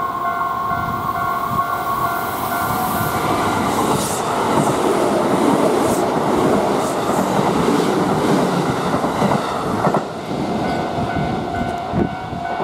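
A Japanese level-crossing warning bell rings with a steady repeating tone while a Kintetsu electric commuter train passes close by. From about four seconds in, the train's wheels clattering over the rail joints drown out the bell. The bell is heard again once the train has cleared, near the end.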